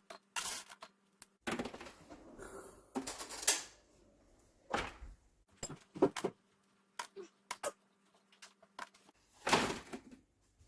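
Kitchen handling sounds: scattered knocks and clicks of cookware, utensils and cupboard doors, several sharper knocks among them, with a faint steady hum in the background for part of the time.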